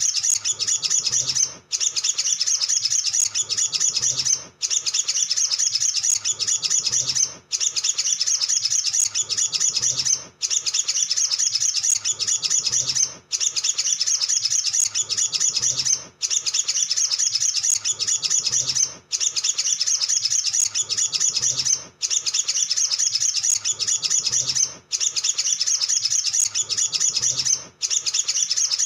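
Male olive-backed sunbird's rapid, high-pitched twittering song, a dense run of chirps in phrases about three seconds long, each broken by a brief pause.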